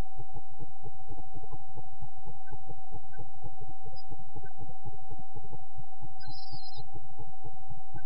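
A steady electronic tone, one unchanging pitch in the middle range, over a rapid low pulsing of about five beats a second, with a few faint high chirps about four and six seconds in.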